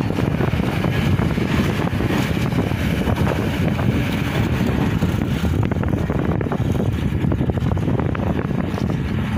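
Heavy diesel machinery engine running steadily, with wind buffeting the microphone.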